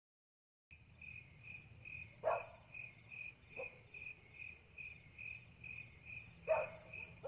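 Crickets chirping in a steady pulsing rhythm, about two to three pulses a second, coming in just under a second in after a moment of silence. A few short, lower calls sound over the chirping.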